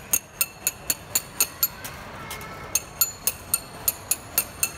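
Ding ding candy seller's metal chisel and hammer struck together in quick ringing clinks, about four a second, with a short pause near the middle. This 'ding ding' is the seller's call that gives the candy its name.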